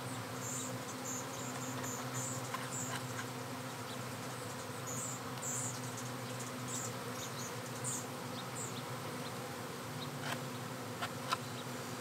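Many honeybees flying around their disturbed colony, a steady buzzing drone, with faint scattered clicks over it.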